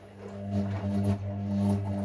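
Hoover washing machine's drain pump starting up and humming steadily, a low buzzing tone that swells over the first half second.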